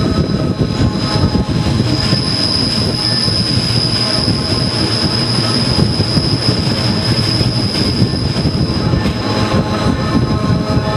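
Rhaetian Railway Bernina line train's wheels squealing on a curve: a steady high-pitched squeal over the loud rumble of the wheels on the rails.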